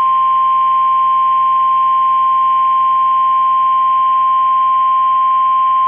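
NOAA Weather Radio's 1050 Hz warning alarm tone: one loud, steady, unbroken high tone through a radio receiver, the signal that a warning broadcast is about to follow.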